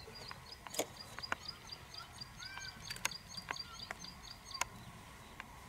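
A bird calling a fast, even run of short high chirps, about five a second, that stops about two-thirds of the way through. A few softer, lower bird calls and scattered sharp clicks sound alongside.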